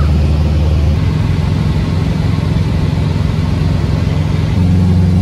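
Cessna light aircraft's piston engine and propeller droning steadily inside the cabin in cruise flight. The low hum shifts slightly in pitch about a second in and again near the end.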